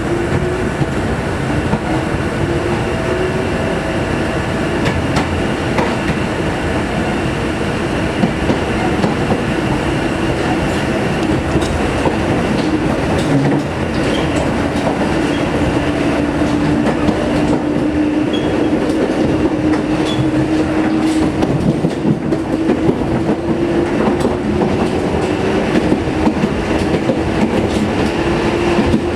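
A Sanki Railway electric train heard from on board while running: wheels rumble and clack over rail joints, and a traction-motor hum rises in pitch at the start, holds steady, then rises again near the end.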